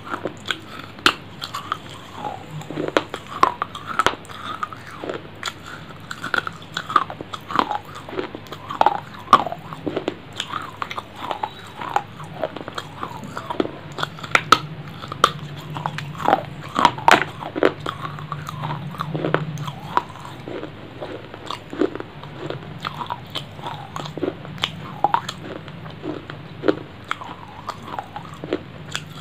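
Close-up biting and crunching of a hard, crunchy piece of food: sharp cracks at irregular intervals with chewing in between, over a steady low hum.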